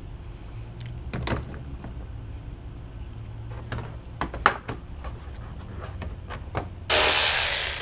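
Plastic trim clips clicking and snapping as they are pried out of a car's plastic engine-bay air-duct cover, then a loud scraping rustle of about a second near the end as the plastic cover is pulled free.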